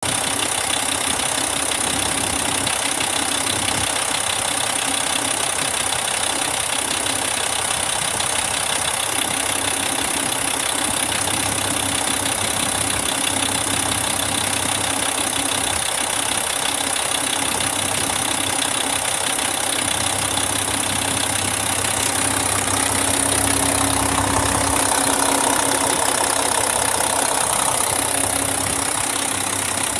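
2003 Mack E7 inline-six diesel engine idling steadily, getting a little louder for a few seconds near the end.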